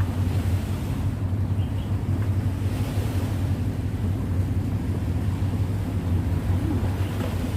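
Wind buffeting the microphone on an exposed hillside, a steady low rumble with a faint hiss above it.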